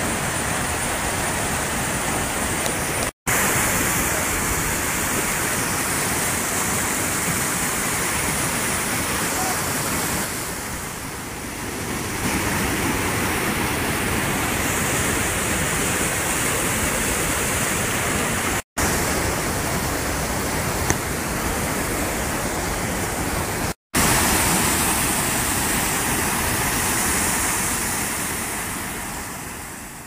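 Steady rush of a rocky river's rapids and a small waterfall pouring over boulders and rock slabs. The sound cuts out for a split second three times and fades away near the end.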